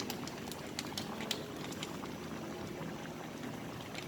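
A pot of seafood sauce simmering, bubbling steadily with many small scattered pops.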